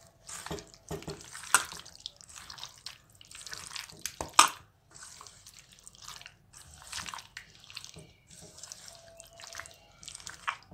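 A hand mixing raw chicken pieces into a wet curd-and-lemon marinade in a stainless steel bowl: irregular wet squelching and squishing, with a few sharp clicks, the loudest about four seconds in.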